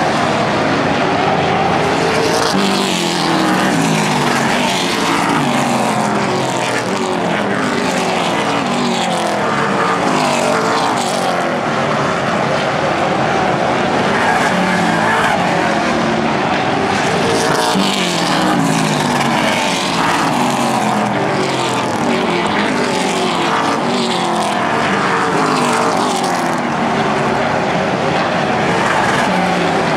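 A field of Pro Stock super late model race cars racing together, their V8 engines rising and falling in pitch as the cars pass and swing through the turns, several engines heard at once.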